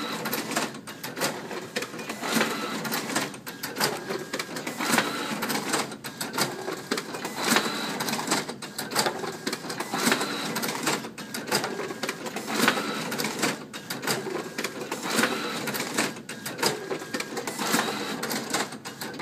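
Neopost DS-35 folder inserter running, feeding, folding and inserting checks into envelopes and sealing them: a steady mechanical whir with sharp clacks repeating about once a second.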